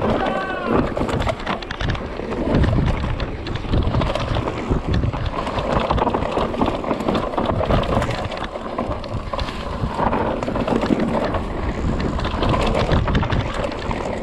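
Scott mountain bike riding fast down a rough dirt trail: continuous wind buffeting on the microphone over the rumble of the tyres and a steady clatter of knocks and rattles from the bike on the bumpy ground.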